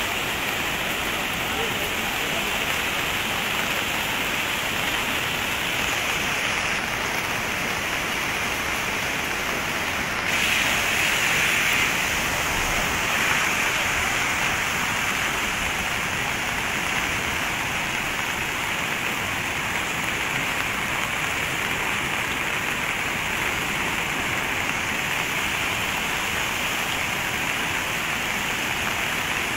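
Steady rushing roar of a muddy river in full flood, a little louder for a couple of seconds about ten seconds in.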